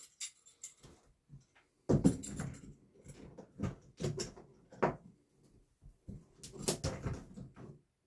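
A length of 2x3 lumber being worked into place in the RV subframe: irregular wooden knocks and thumps with scraping and rustling, the loudest knock about two seconds in.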